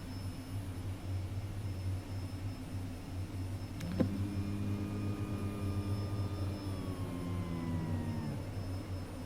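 Air traffic control radio channel between transmissions: a steady low hum and hiss. About four seconds in a click, then a held humming tone that sags slightly in pitch and cuts off abruptly about four seconds later.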